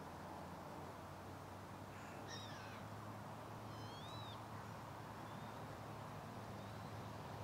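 Two short, thin bird calls, about two and four seconds in, the second an arching note that rises and falls, over a steady low background hum.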